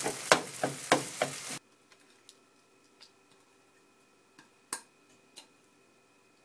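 Pancake batter sizzling in a frying pan while a utensil stirs and scrapes it into scrambled pieces in quick strokes, about three a second. The frying cuts off abruptly about a second and a half in, leaving a quiet stretch with a few faint clicks and one sharper click later on.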